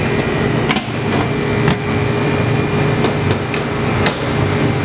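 Commercial kitchen background: a steady mechanical hum with a faint steady tone under it, broken by about seven sharp knocks and clicks at irregular intervals.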